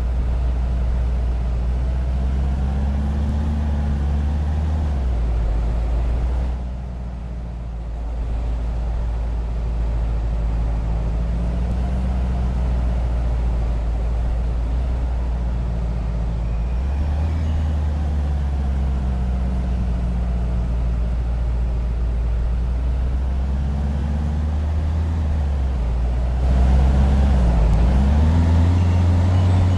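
A vehicle's motor running with a strong low drone, its pitch rising and falling as it speeds up and slows down; it drops away briefly about seven seconds in and grows louder near the end.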